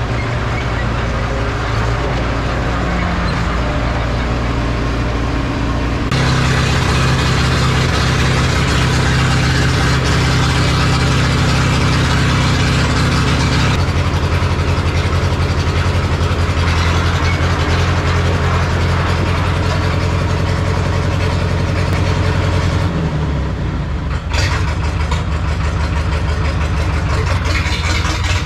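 John Deere 1010's four-cylinder diesel engine running, its speed stepping up and down a few times. The engine smokes heavily, which the owner traces mostly to the fourth cylinder.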